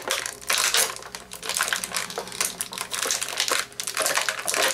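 Plastic packaging crinkling and crackling as it is handled and pulled apart to free small toy accessory pieces, with irregular clicks of the plastic parts.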